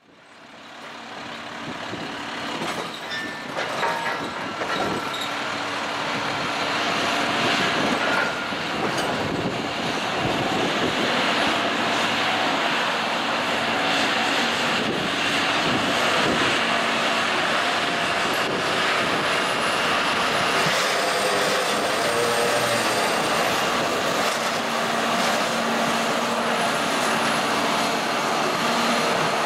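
Harsco Mark IV HD track maintenance machine running on the rails: a steady engine drone with held tones and scattered wheel clicks, rising from silence over the first few seconds.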